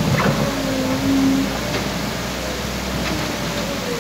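Backhoe loader's diesel engine running, its pitch rising and falling a little, over a steady rushing noise.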